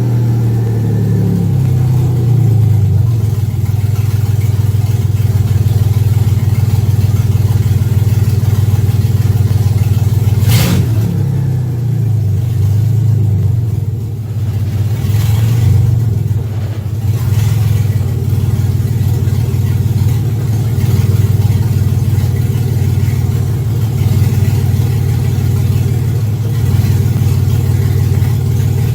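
Sandrail engine running steadily near idle, with a few sharp clunks, the loudest about ten seconds in and two more around fifteen to seventeen seconds, as it is shifted through the gears with the new shift lever.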